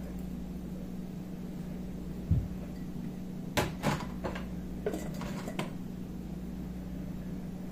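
Kitchen handling sounds: a dull thump about two seconds in, then a quick run of about six clinks and knocks, like a glass seasoning jar, spoon and other items being set down and moved on a stone worktop, over a steady low hum.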